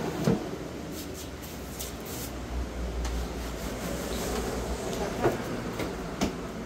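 A low rumble that swells in the middle, with a few short knocks as the plastic mannequin and its stand are handled: one just after the start and two near the end.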